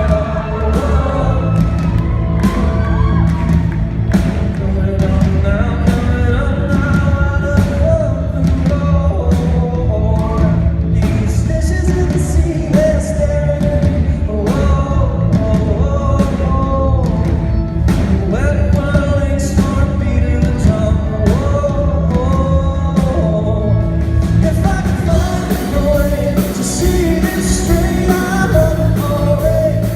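A rock band plays live while a male lead singer sings, over a steady drumbeat of about two hits a second. Near the end the cymbals grow louder.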